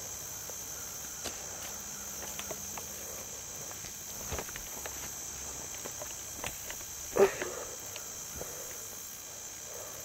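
A steady, high-pitched chorus of insects, crickets or the like, with scattered light clicks and knocks of footsteps on creek rocks and one louder knock about seven seconds in.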